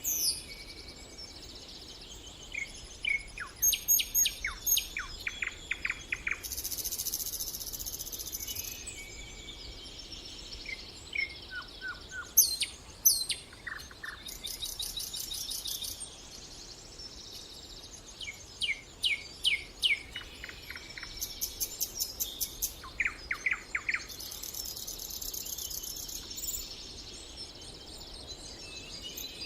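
Several songbirds singing and calling at once: runs of rapid repeated chirps and whistled notes, overlapping with high, buzzy trills that last a second or two each.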